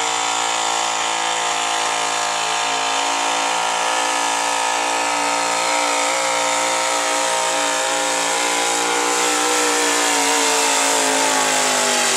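Gasoline pickup truck engine running flat out under full load, pulling a weight-transfer sled. The engine note holds a steady high pitch, then the revs sag and the pitch falls over the last couple of seconds.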